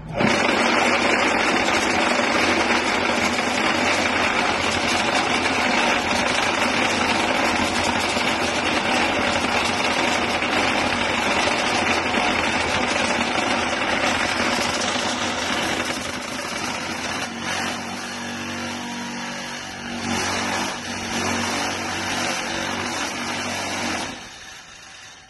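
QT4-24 brick making machine running: a loud, steady mechanical din that starts suddenly, eases a little about two-thirds of the way through as a lower hum comes through, and falls away near the end.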